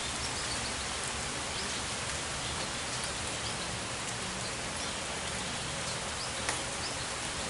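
Steady rain falling, an even hiss, with a single sharp tap about six and a half seconds in.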